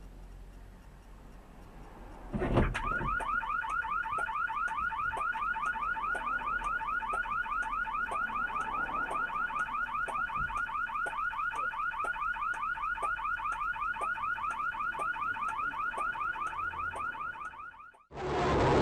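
A sharp knock, then a car alarm sounding: a quick rising chirp repeated about three times a second, which cuts off suddenly near the end.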